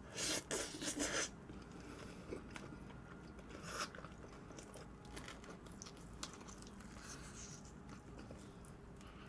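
Close-miked crunching as crispy fried chicken is bitten into, several loud crunches in the first second or so. Then quieter chewing, with one more crunch about four seconds in.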